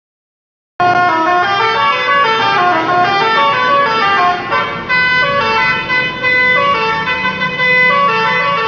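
Telolet bus horn, a set of multi-tone air horns, playing a quick melody of short stepping notes, several at once, loud and starting suddenly about a second in.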